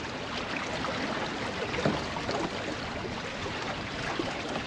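Choppy water lapping and sloshing against a kayak's hull and the bridge pilings, with a brief knock about two seconds in.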